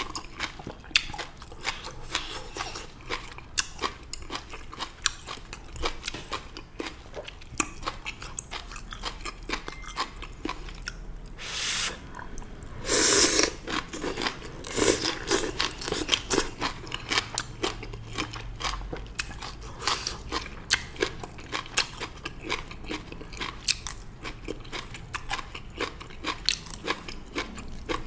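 Close-miked eating: a mouth chewing and crunching stir-fried morning glory (water spinach), with many small wet clicks and crunches. There are two louder noisy rushes a little before and after the middle.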